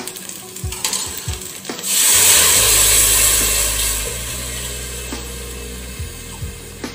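Water poured into a pressure cooker of onions frying in hot ghee and oil: after a few light knocks of the ladle, a loud sizzling hiss bursts up about two seconds in as the water hits the hot fat, then slowly dies down as the pan cools.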